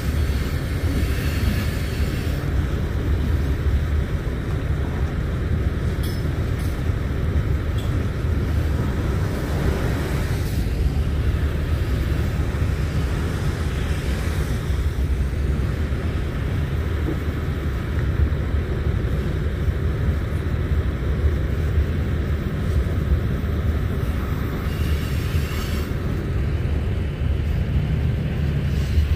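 Freight train cars rolling past on the rails: a steady, low, unbroken noise of wheels and cars that neither builds nor fades.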